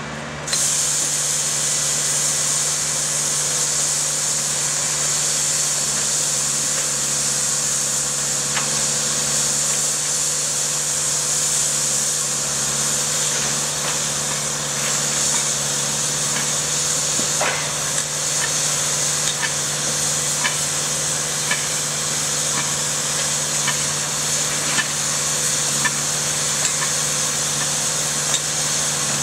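Diesel engine of a track-maintenance machine running steadily under a loud steady high hiss that starts about half a second in, with scattered light clicks and knocks of tie work in the second half.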